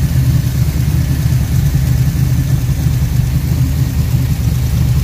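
Pontiac 455 V8 with a hydraulic roller camshaft idling steadily, a deep, evenly pulsing rumble.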